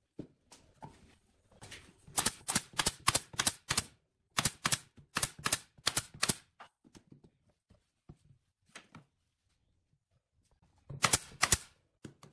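Pneumatic brad nailer firing brads into wooden boards: two rapid runs of sharp shots, several a second, then a shorter run of two or three near the end, with light knocks of wood being handled between.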